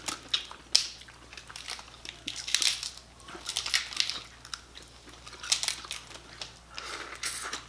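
Cooked crab shells cracking and crunching as they are broken apart by hand, in irregular sharp cracks, with biting and chewing on crab near the end.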